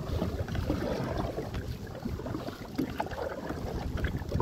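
Wind gusting across the microphone with a low, uneven rumble, while a kayak is paddled and the paddle and hull stir up light water sounds.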